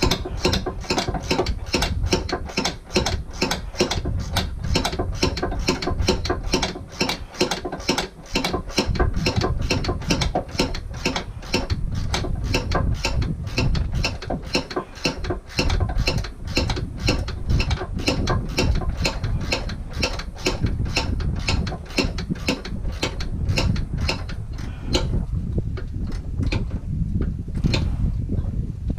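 Hand ratchet wrench clicking steadily, about three clicks a second, as a bolt at the car's transmission mount is turned. The clicking thins out and stops near the end.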